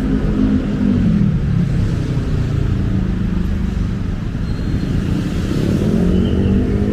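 City street traffic with cars and motorcycles running close by, their engines dropping in pitch over the first couple of seconds and one pulling away with a rising engine note about five seconds in.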